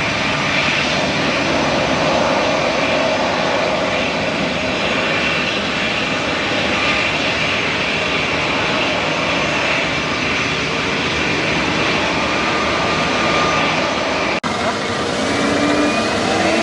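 Airbus A320neo's CFM LEAP-1A jet engines running close by: a loud, steady jet rush with a thin whine over it. After a sudden cut near the end, another jet's engine whine rises in pitch.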